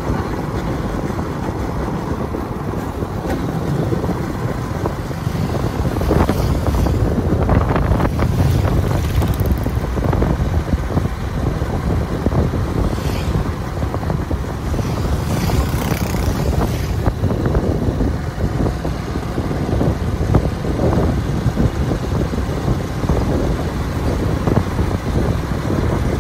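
Wind buffeting the microphone over a steady low vehicle rumble, with two longer stretches of louder hiss partway through.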